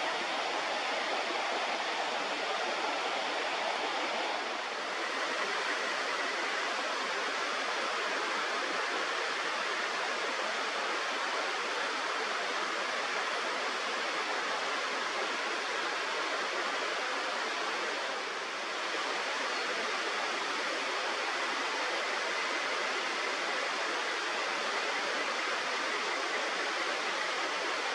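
Steady rush of a flowing river: an even hiss of running water that dips slightly twice.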